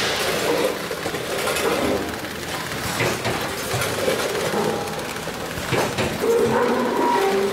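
Factory-floor noise from a snack packaging line, a multi-head weigher feeding a vertical bagging machine: a steady machine clatter with sharp clicks at intervals. A wavering tone comes in near the end.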